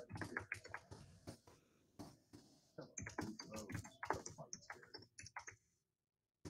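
Faint computer keyboard typing: quick clicking keystrokes, with a few faint pitched sounds mixed in midway. It stops shortly before the end.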